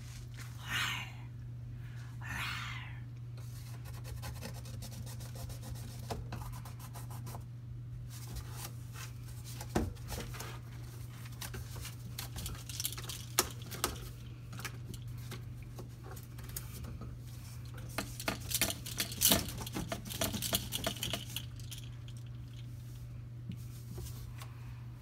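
Rustling, scratching and light clicks as a long-haired Himalayan cat plays and shifts about on a wire closet shelf, with a hand rubbing its fur. There are two short noisy swishes near the start, and the clicks come thickest in the middle, over a steady low hum.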